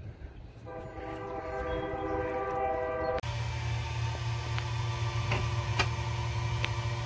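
A horn sounds a steady, held chord of several tones for about two and a half seconds, then cuts off abruptly. After that a steady low hum continues, with a few faint clicks.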